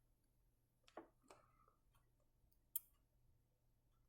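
Near silence, broken by three faint, short clicks from the soldering iron and small parts being handled against the circuit board, the sharpest about three seconds in.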